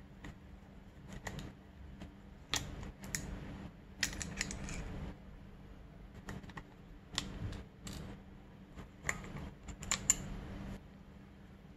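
Hands handling a Keihin FCR carburetor and its small parts on a shop towel: irregular light clicks, taps and scrapes of metal parts and hoses, with a short rustling stretch about four seconds in and a sharper click about ten seconds in.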